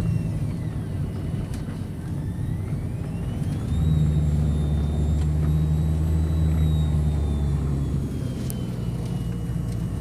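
Tour bus engine running, heard from inside the vehicle. About four seconds in, the engine hum gets louder and deeper, as if under load, then eases again near the end. A faint high whine rises, holds and then slowly drops.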